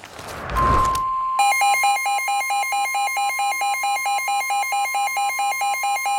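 Weather radio coming on with a short burst of static, then the NOAA Weather Radio warning alert tone, a steady single pitch. About a second and a half in, the radio's own fast, rapidly repeating warble alarm joins it, signalling that a severe thunderstorm warning is being received.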